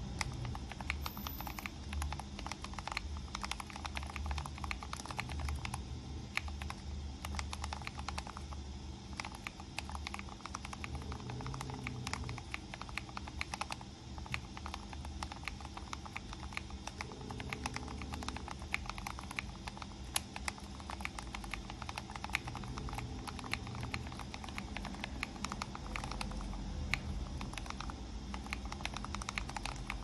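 Fast, continuous typing on a split mechanical keyboard with a clear case: an unbroken stream of key clicks, several a second.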